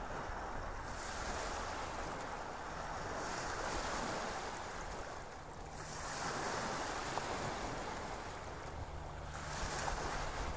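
Ocean surf: waves washing in and drawing back in slow swells about every three seconds.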